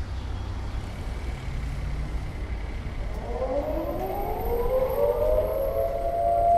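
CLM civil-defence air-raid siren winding up: from about halfway in, a chord of several tones rises steadily in pitch and grows louder, levelling off near the end, over a low rumble.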